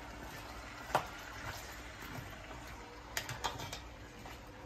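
Spoon knocking and scraping against an enamel pot as chopped vegetables in oil are stirred: a sharp knock about a second in and a quick cluster of clicks a little past three seconds, over a faint steady hiss.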